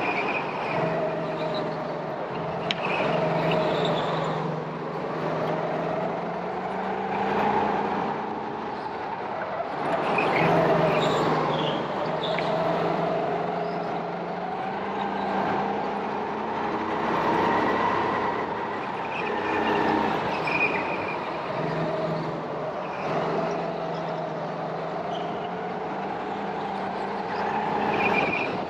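Go-kart engine revving up and easing off in repeated swells, its pitch rising and falling every few seconds as it accelerates and slows.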